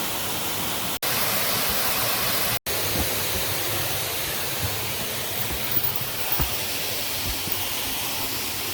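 Steady rushing of running water, broken twice by a sudden brief dropout about one and two and a half seconds in.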